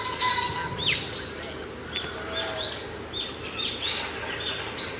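Songbirds chirping, many short high calls overlapping several times a second, with quick falling whistles and one held whistled note near the start.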